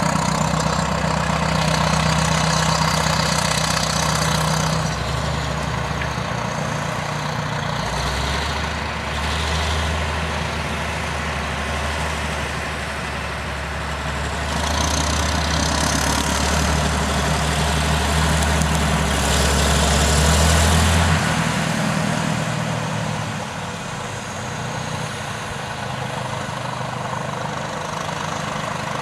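Heavy diesel engines of Caterpillar earthmoving machines, a DW20 scraper and a D7E bulldozer, running under load while moving dirt. The engine sound swells in the first few seconds and again from about 15 seconds. A deep drone cuts off about 21 seconds in, and the engines run on more quietly after that.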